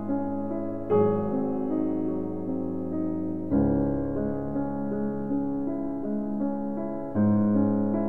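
Background piano music: held chords, with a new one struck about every three seconds.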